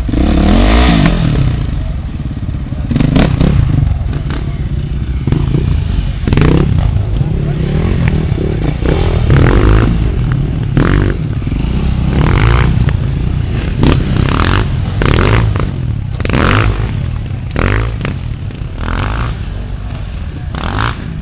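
Enduro motorcycle engines running and revving in repeated short bursts, with pitch rising and falling.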